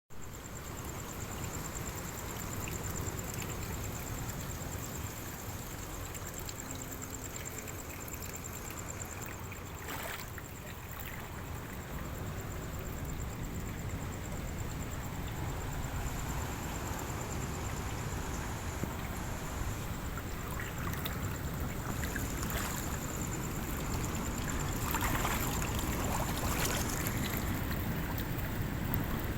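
Big sea waves rushing and breaking, a steady roar of water and wind with louder surges now and then.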